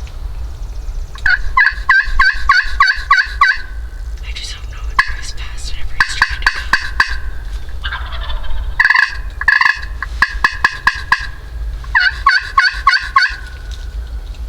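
Turkey calling at close range: four runs of quick, evenly spaced notes, over a steady low rumble.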